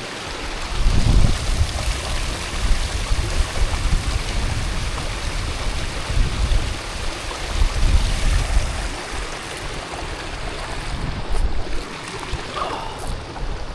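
Gusty wind buffeting the microphone, a low rumble that rises and falls over a steady rushing hiss.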